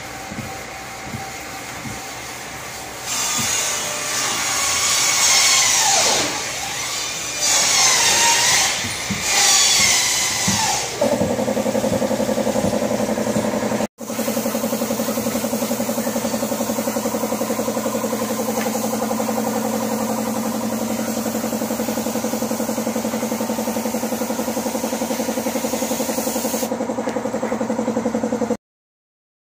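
Compressed-air spray gun hissing steadily over the even hum of its compressor, spraying finish onto a wooden table. Before it, a louder rough whirring swells and fades several times. The hum and hiss stop abruptly near the end.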